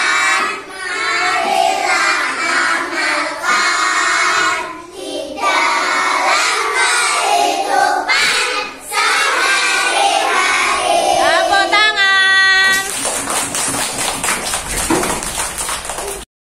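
A class of young schoolchildren singing a song about the Pancasila together in unison. About twelve seconds in they hold a long final note. Then come a few seconds of noisy commotion, and the sound cuts off abruptly just before the end.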